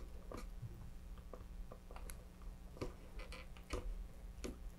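Faint, irregular small clicks and scrapes of a metal dental pick pressing epoxy clay into a gap in a thin plastic fin fairing, about ten ticks spread unevenly.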